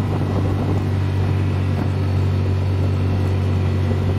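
Side-by-side UTV engine running steadily at cruising speed, a low even drone, with tyre and cab noise from driving on a gravel road.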